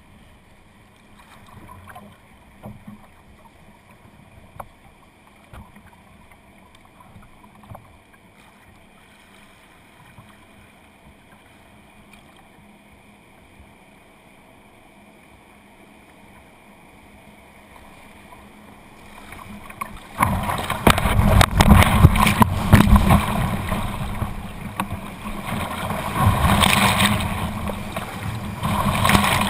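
Kayak on calm river water, with only a few faint ticks for most of the time. About two-thirds in, it runs into a class 2+ rapid and loud rushing whitewater splashes against the bow.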